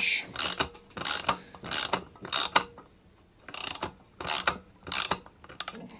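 Ratchet socket wrench clicking in short runs as it is swung back and forth, backing off a mower's height-adjustment bolt. There is a run of clicks about every half second, with a pause near the middle.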